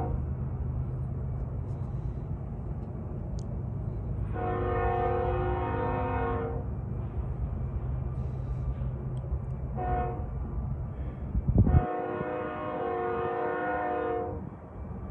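BNSF diesel locomotive air horn sounding several notes at once: a long blast, a short toot, then another long blast, over the steady rumble of the train's engines. A brief thump comes just before the last blast.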